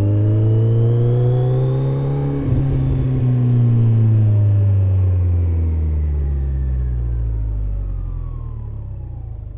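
Kawasaki ZZR1400 inline-four motorcycle engine pulling in first gear, its pitch rising for about two seconds. About two and a half seconds in, the kill switch cuts it, and the note then falls steadily and fades as the bike coasts down, the engine still turned over by the rear wheel with the clutch out.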